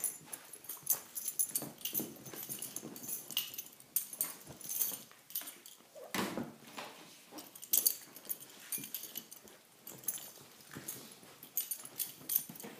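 A Rhodesian Ridgeback and a Jack Russell puppy play-wrestling: irregular scuffling and clicking with short dog noises.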